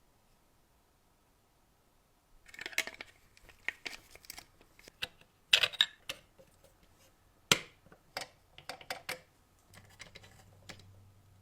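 Irregular sharp clicks and taps with light scraping as small hard parts are handled, after about two seconds of near silence; a faint low hum comes in near the end.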